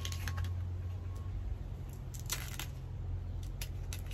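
A knife cutting and scraping wild bamboo shoots, with short crisp snaps and rustles as the husk sheaths are split and peeled off, and one longer scrape about two and a half seconds in. A steady low hum runs underneath.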